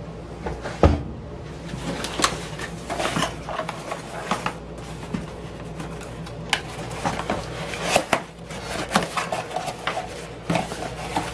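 Packaging and small bike parts being handled and unwrapped: irregular rustling with sharp clicks and knocks, and a heavier thump about a second in. A faint steady hum lies underneath.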